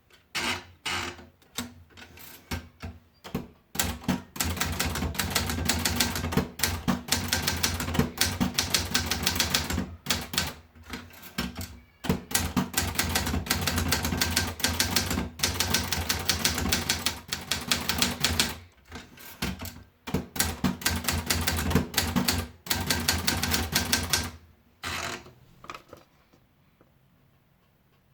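Adler Gabriele 35 manual typewriter being typed on: a few scattered keystrokes, then fast, steady typing with a few short pauses, ending in a last few strikes.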